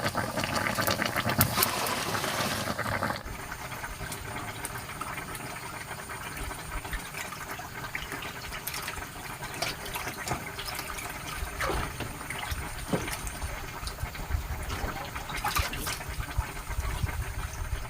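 Water noise: a dense rush with fine ticks that drops suddenly about three seconds in to a quieter, steady wash with scattered ticks.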